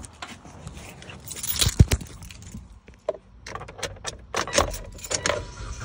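Car keys jangling, with a string of sharp clicks and knocks as the keys are handled at the steering column, just before the engine is started; the strongest knock comes about two seconds in.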